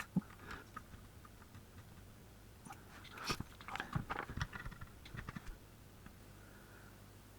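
Faint scattered clicks and light metal taps of tweezers and small tools being picked up and handled on a workbench, with a busier run of them from about three to five seconds in.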